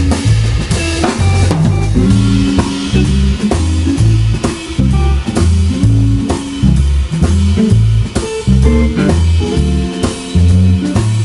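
Live band playing an instrumental: electric guitar, electric bass and drum kit together. The bass guitar's shifting low notes are the loudest part, under steady drum hits and guitar lines.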